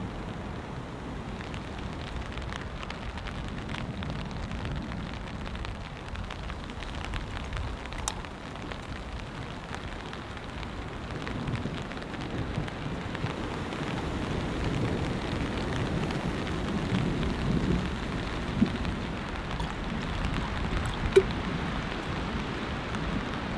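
A small gas canister stove, a cheap copy of the Soto WindMaster, burning steadily under a kettle. A low rumble builds in the second half, and two sharp metal clinks come near the end as the kettle is handled.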